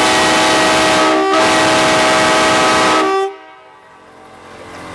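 Nathan train air horns mounted on a motorhome blowing a loud chord of several steady notes. There is a brief dip just over a second in, and the horns cut off abruptly after about three seconds.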